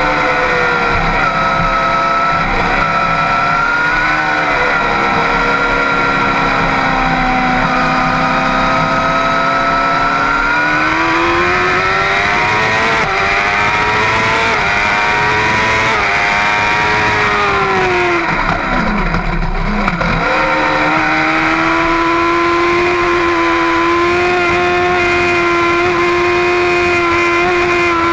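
Middleweight superbike engine running at high revs on a racetrack, heard close up from a camera mounted on the bike; its pitch rises and falls with the throttle through the corners. About 19 seconds in, the pitch drops sharply, then it climbs back and holds steady near the end.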